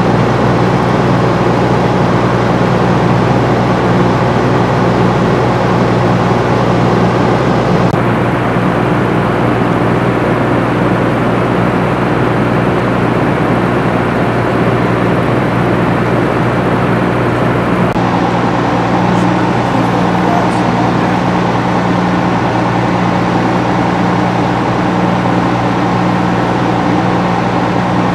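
Heavy engine idling steadily, a constant low hum under a wash of running noise. The sound changes abruptly twice, about a third and two thirds of the way through.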